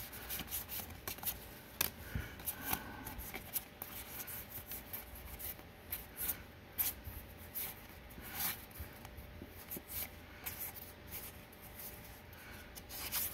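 Magic: The Gathering trading cards being handled and flipped through by hand, soft irregular rubs and flicks of card against card.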